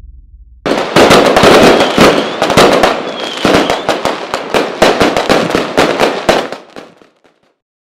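Fireworks sound effect: a sudden start of dense crackling and bangs, with a couple of whistles among them. The bursts thin out and die away near the end.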